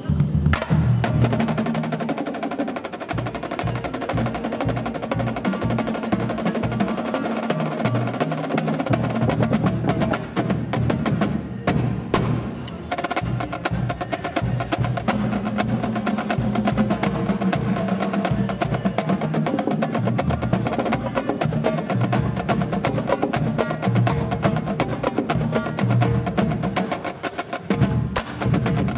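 Marching band drumline playing a cadence: snare drums, multi-drum tenor sets and pitched bass drums struck in fast, dense rhythms with drum rolls.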